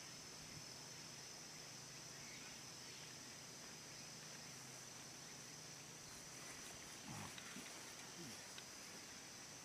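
Quiet outdoor ambience: a faint steady high-pitched hum, with a few faint low, short sliding sounds about seven to eight seconds in.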